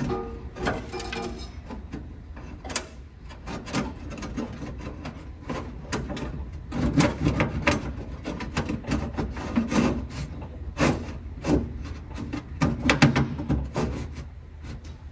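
Handling noise as a wiring harness is pushed up from the engine bay toward the back of the dashboard: irregular rubbing and scraping with clicks and knocks, busiest in the second half.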